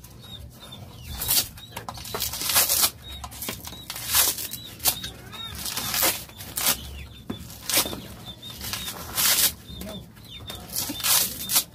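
Fibrous coconut husk being ripped off by teeth and hands: repeated short tearing and rustling rips, one about every second or so.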